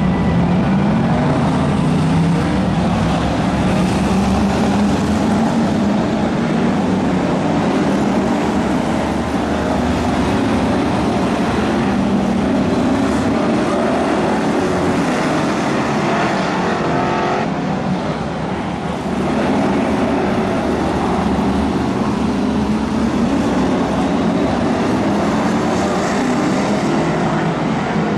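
A pack of BriSCA F1 stock cars' V8 engines running hard around the oval, loud and continuous, their pitch rising and falling as the cars accelerate and lift through the turns.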